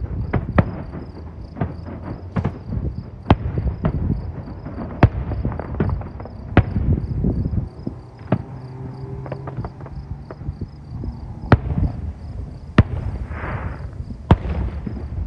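Fireworks display heard from about a block away: a string of sharp aerial shell bursts at uneven spacing, one to three a second, over a low echoing rumble, with a short crackling hiss about three quarters of the way through.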